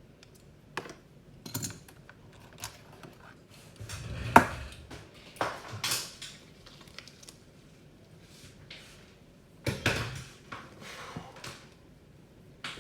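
Scattered clicks, taps and clatter of multimeters and test leads being handled and set up for a voltage test. The sharpest knock comes about four and a half seconds in, with more clicks around six and ten seconds.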